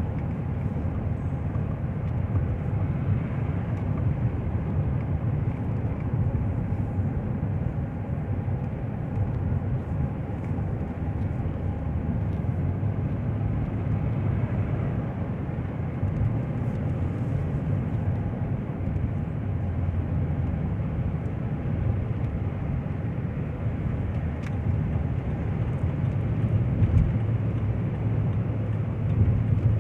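A car driving on a road test of its misfiring engine: steady engine and road noise, a little louder near the end.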